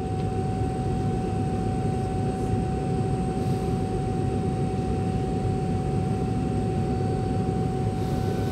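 Airliner's jet engines running at low power as the plane begins to taxi, heard inside the cabin as a steady low rumble with a steady whine. It grows a little louder at the start.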